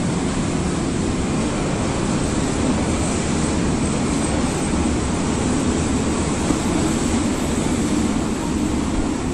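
Berlin U-Bahn train running with a steady rumble, overlaid by a thin, high-pitched squeal of the wheels on the rails.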